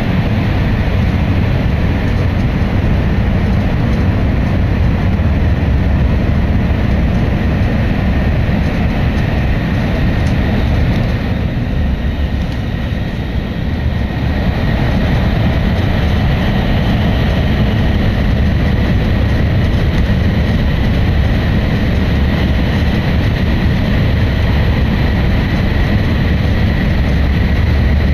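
Cabin noise of a Hokkaido Shinkansen bullet train running on the line, heard from inside the passenger car: a steady low rumble of wheels on rail with a faint steady high whine. It eases off a little for a couple of seconds about twelve seconds in.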